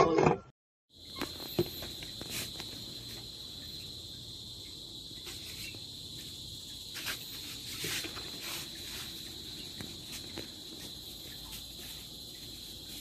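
A steady high-pitched insect trill, with scattered light clicks and taps.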